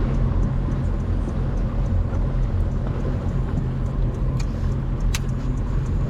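An engine running steadily with a low rumble, with faint scattered clicks above it.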